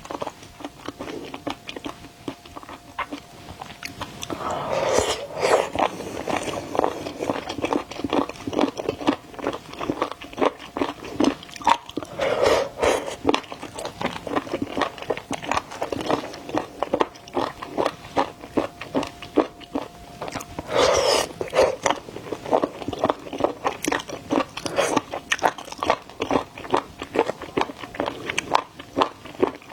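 Close-miked eating sounds of a person biting into and chewing crunchy shrimp: a steady run of wet crunching and crackling, with heavier bites about 5, 12 and 21 seconds in.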